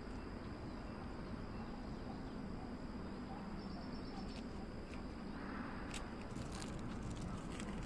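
Outdoor background: a steady low rumble under a thin, steady high-pitched insect drone, with a few sharp clicks in the last two seconds.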